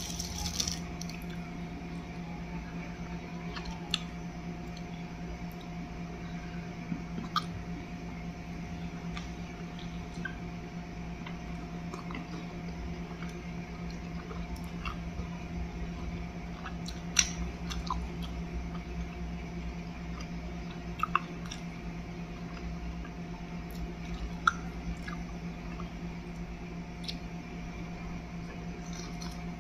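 Close mouth sounds of a person chewing and biting into soft baked bread, with a few sharp clicks, over a steady low hum.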